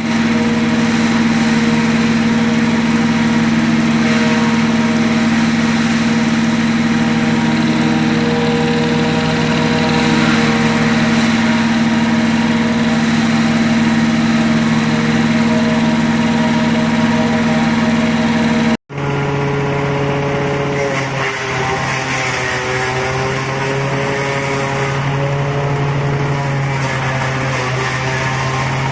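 Horizontal wood chipper running steadily, its drive giving a constant hum. Its sound breaks off abruptly about two-thirds of the way through and resumes at a lower pitch that dips slightly now and then, as if under load.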